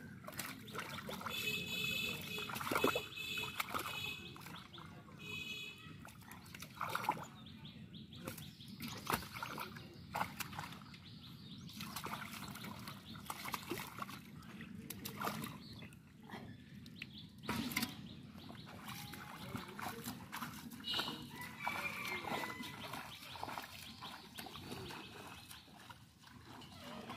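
Hands digging and slapping in wet mud and shallow water, with irregular squelches and small splashes. A high-pitched animal call sounds twice in the first few seconds and again past the twenty-second mark.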